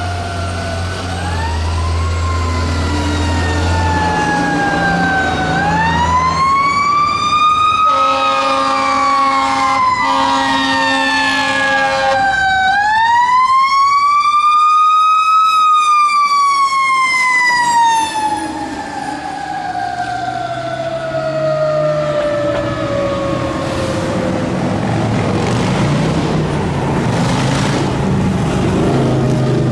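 Fire engine siren wailing. Its pitch sweeps up and down several times, then climbs to a peak and falls slowly in one long wail lasting about ten seconds. Two long horn blasts sound just before that last climb, and the truck's engine runs underneath.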